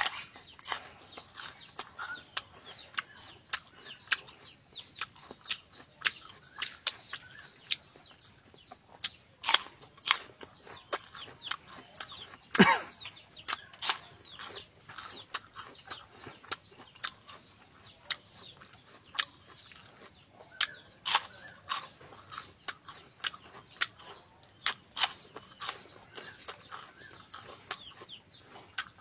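Close-up chewing of raw banana-stem core: irregular sharp crunches and crackles throughout, a few much louder than the rest.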